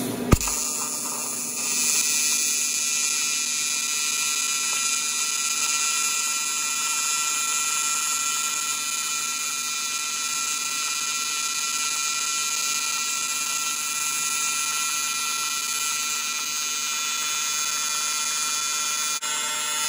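AC TIG welding arc running on an aluminium chainsaw cylinder with 4043 filler rod, at a 150 Hz AC frequency: a steady, high-pitched electric buzz. The arc strikes with a sharp crack just after the start, gets louder about two seconds in, and cuts off abruptly at the end.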